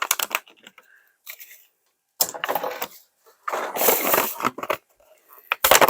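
Plastic toy bags crinkling and tearing open, with scattered clicks of small plastic pieces being handled, and a longer rustle a couple of seconds in and again near the middle.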